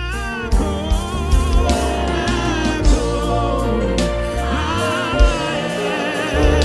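Gospel worship music: singing with a wavering vibrato over heavy bass and occasional drum hits.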